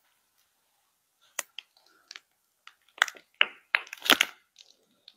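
Disposable plastic piping bag crinkling and crackling in the hands as it is squeezed to pipe pastry cream. The crackles are irregular and sharp and begin after a quiet first second.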